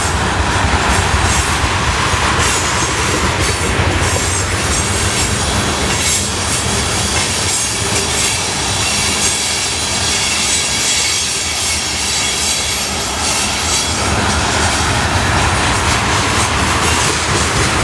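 Norfolk Southern freight train of tank cars passing at speed: a steady, loud rumble and rush of steel wheels on the rails, with a thin high squeal from the wheels over it.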